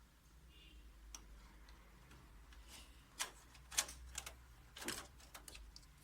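Scattered light clicks and taps, the sharpest few between about three and five seconds in: hands handling cable connectors and plastic parts inside a copier under repair.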